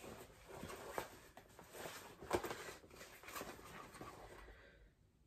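Handling noise from a nylon tote bag with leather handles being turned over and opened by hand: soft rustling with a couple of sharp clicks, about one and two and a half seconds in, dying away near the end.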